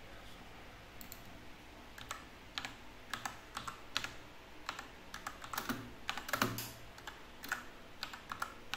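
Typing on a computer keyboard: irregular key clicks, busiest and loudest around six seconds in.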